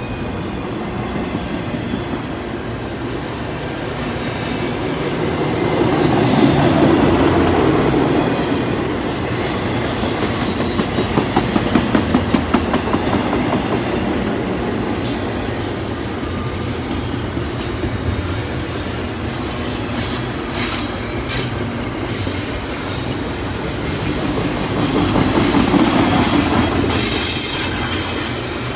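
Double-stack container well cars of a freight train rolling past close by: a steady rumble of steel wheels on rail that swells twice as trucks pass. A run of quick, regular wheel clicks comes about a third of the way in, and thin, high wheel squeals come in the second half.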